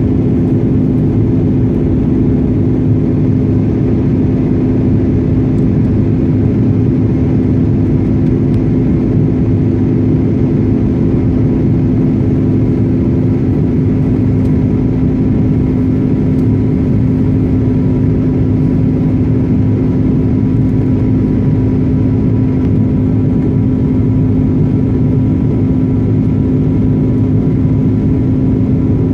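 Steady cabin noise inside an Airbus A330 climbing after takeoff, heard from a seat over the wing: the turbofan engines' constant drone and steady hum over the rush of air.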